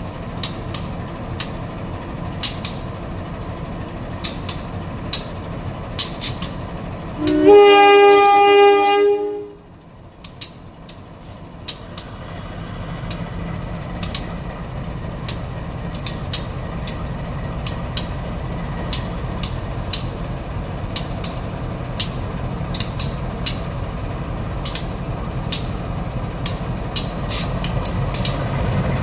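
Train rolling past with a steady rumble and frequent sharp wheel clicks over the rail joints. About seven and a half seconds in, the diesel locomotive sounds a loud two-tone horn for about two seconds; the rolling noise then drops away suddenly, and a rumble with clicking slowly builds again.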